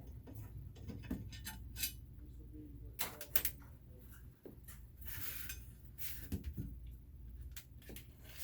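Scattered clinks and clicks of small hard objects being handled and set down, with a brief rustle about five seconds in, over a low steady hum.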